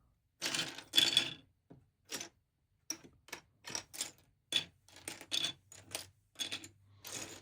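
Loose plastic LEGO pieces clicking and rattling against each other as they are handled and spread apart. The clicks come irregularly, with longer rattles about a second in and near the end.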